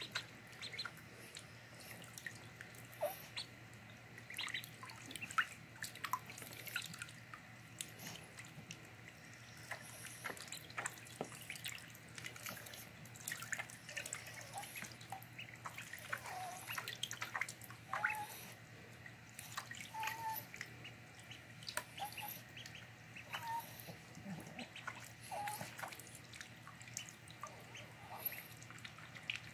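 Five-day-old ducklings swimming and dabbling in shallow water in a plastic tub: many small splashes and drips, with a few short faint peeps.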